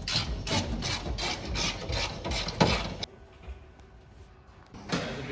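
Repeated scraping strokes, about three a second, which stop about three seconds in; one more short scrape comes near the end.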